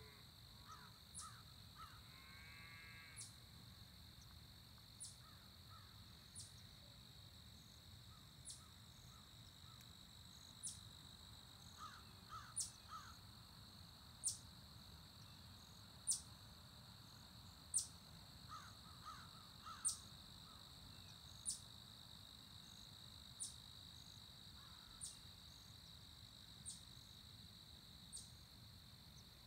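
Faint rural morning ambience: insects giving a steady high-pitched trill throughout. Crows caw faintly in short series a couple of times, about twelve and nineteen seconds in. A sharp high tick repeats about every second and a half to two seconds and is the loudest sound.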